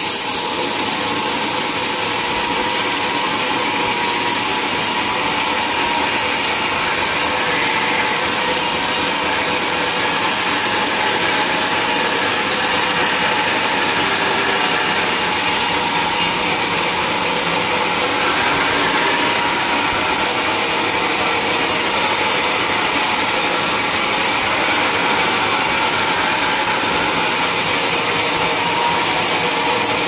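Sawmill blade cutting steadily through a large log with the machine running under it, an even, continuous rasping noise that does not let up.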